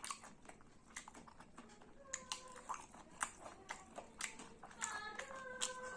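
Close-up chewing and biting: a rapid run of short, wet mouth clicks and smacks from someone eating. From about two seconds in, a few faint held tones sit under the clicks.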